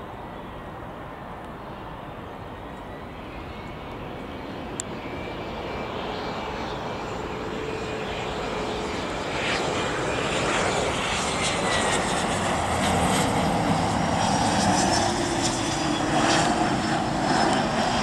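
Twin turbofan engines of a Cessna 680A Citation Latitude business jet on landing approach: a steady rush with a high whine, growing louder as the jet nears. The whine slides slightly in pitch in the second half.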